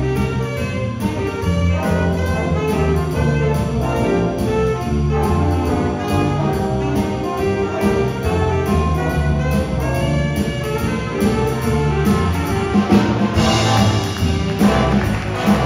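A high school jazz big band playing a swing tune live: a saxophone section over drums with steady cymbal beats and upright bass. The full brass section, trumpets included, comes in louder and brighter about thirteen seconds in.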